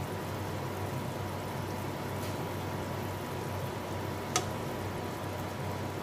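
Steady low hiss with a faint hum from a karahi of sugar syrup simmering on a low gas flame, broken by one sharp click about four and a half seconds in.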